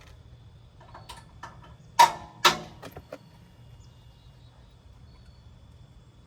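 Metal parts of a grill being handled while a burner bolt is fitted: a few light clicks, then two sharp knocks about half a second apart, about two seconds in, each with a short ring, and a couple of lighter clicks after.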